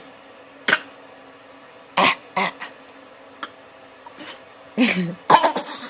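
A baby fake coughing: a series of short, deliberate little coughs with pauses between them, coming closer together near the end.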